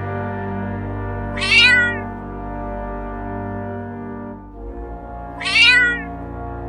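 A cat meowing twice, about four seconds apart, each a short, loud meow, over steady background music with long held chords.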